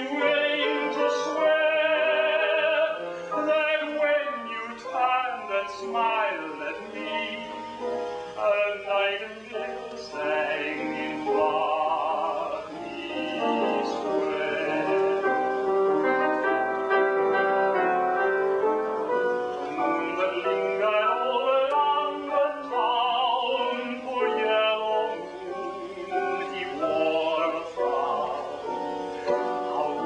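A song performed live by a male singer with piano accompaniment: the trained voice sings with a wide vibrato over a continuous piano part, in a reverberant church.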